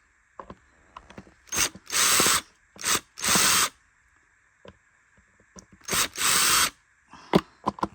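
Power drill backing out the housing screws of a Bissell Cleanview vacuum, run in three short spurts: each a quick blip of the trigger, then about half a second of spinning. A few small clicks near the end.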